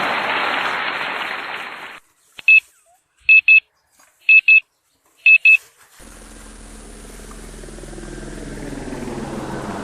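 Short high electronic beeps, first one and then three quick pairs about a second apart, in a near-silent gap. Before them a loud rushing noise fades away, and after them a steady rushing noise slowly builds.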